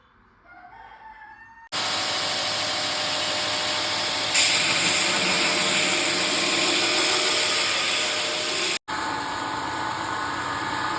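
Electric power tool running steadily on a knife-handle workpiece, starting abruptly about two seconds in. It gets louder about four seconds in and cuts out briefly near nine seconds before running again.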